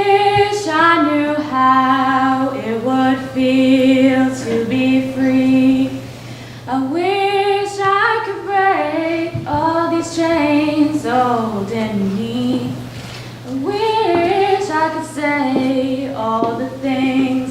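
A group of young voices singing a slow melody together, in three phrases with short breaks between them, over a faint steady hum.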